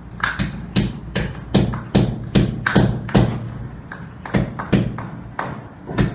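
Hammer driving nails to fix galvanised iron mesh onto a wall: a quick run of sharp strikes, about three a second, with short pauses between groups.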